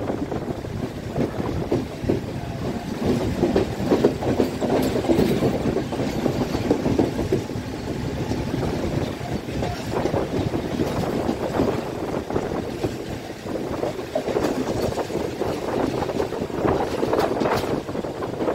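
Passenger train carriage running on jointed track, heard through an open doorway: a steady rolling rumble with irregular clickety-clack from the wheels over rail joints and points.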